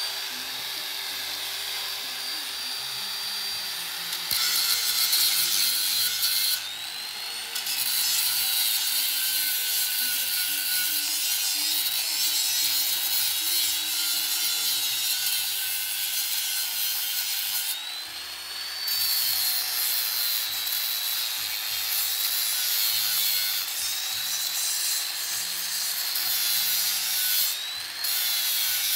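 Angle grinder grinding down weld beads on galvanized hollow steel tubing, a steady rasping grind with a high motor whine that sags under load and climbs back. It eases off briefly three times, about a quarter of the way in, around two-thirds through and near the end.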